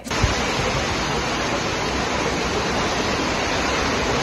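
Heavy rain and strong wind during a storm: a steady, even rushing noise.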